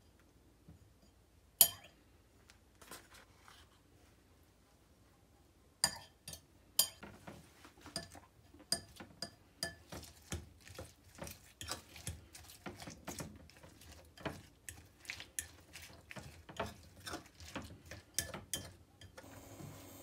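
A wooden-handled utensil stirring chopped cabbage and pickled red ginger in a ribbed glass bowl. From about six seconds in, the utensil clinks irregularly against the glass, roughly twice a second, over a soft wet stirring. One sharp clink comes a couple of seconds in, and a steady hum begins near the end.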